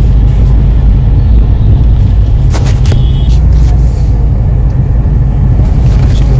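Steady low rumble of engine and road noise heard inside a car moving slowly, with a brief click or knock about two and a half seconds in.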